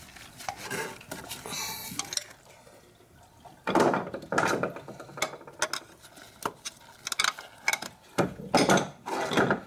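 Metal hand tools clinking and rattling against the engine while working a tight water pump bolt, in scattered clicks with two louder bursts, about four seconds in and near the end.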